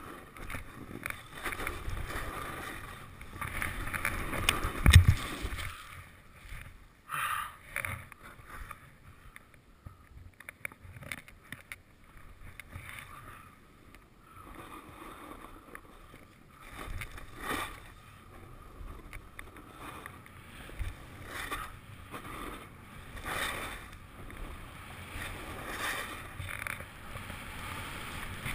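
Skis scraping and swishing over soft spring snow through a series of turns, the noise swelling and fading with each turn. A loud thump about five seconds in.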